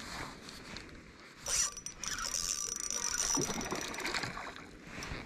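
Spinning reel whirring and clicking as line is worked on a hooked fish, starting abruptly about a second and a half in and running for about two and a half seconds. Wind rumbles on the microphone underneath.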